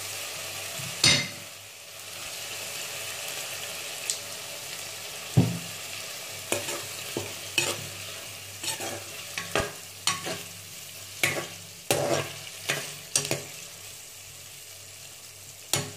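Potato curry sizzling in a pan while a metal spoon stirs it. From about six seconds in, the spoon scrapes against the pan in short strokes, a few each second.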